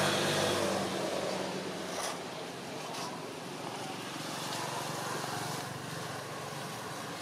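Road traffic: a motor vehicle's engine hum fading out in the first second or so, then steady traffic noise, with two light clicks about two and three seconds in.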